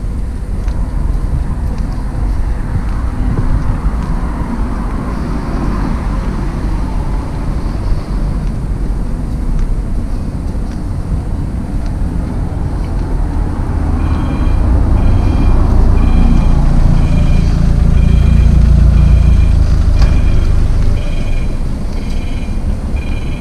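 Road traffic passing on a multi-lane city street, with a heavier vehicle going by loudly in the second half. From about halfway through, a pedestrian crossing signal beeps in a high double tone about once a second.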